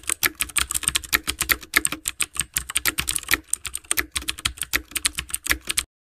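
Computer-keyboard typing sound effect added in editing: rapid, uneven key clicks that cut off suddenly just before the end.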